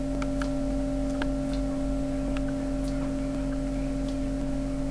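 A steady low hum made of several held tones, with a dozen or so faint short ticks scattered through it.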